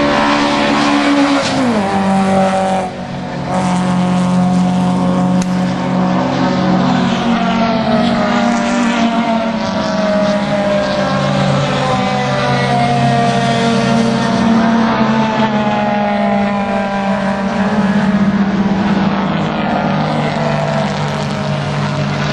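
Classic Japanese saloon race cars' engines running hard as several cars go by on the circuit, their overlapping engine notes falling in pitch as each passes. The sound holds loud and steady, with a brief dip about three seconds in.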